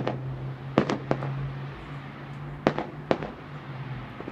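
Aerial firework shells bursting: five sharp bangs that fall roughly in pairs, one at the start, two about a second in and two near the end, each with a short echo. A steady low hum runs underneath.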